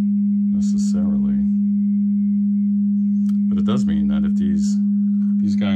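Tube guitar amp's speaker sounding a steady 200 Hz sine test tone while its 6V6 power tubes are pressed by finger to bring out mechanical noise. The tubes are mechanically noisy and give a metallic sound, which doesn't mean they're bad.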